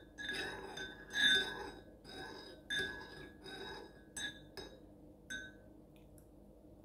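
Metal teaspoon stirring warm lemon water in a ceramic cup, clinking against the cup's sides with short ringing notes. The irregular clinks stop about five seconds in.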